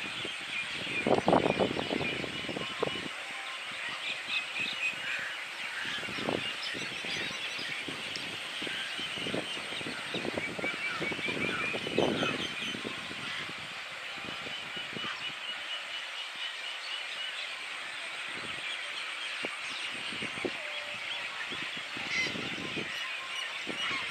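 A large colony of water birds calling together: a dense, unbroken chatter of many high, quick calls, with a few louder, lower calls standing out about a second in and near the middle.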